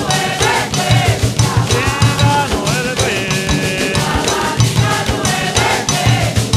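Afro-Brazilian Nagô/Xambá ritual song: voices singing a chant over fast, steady drumming.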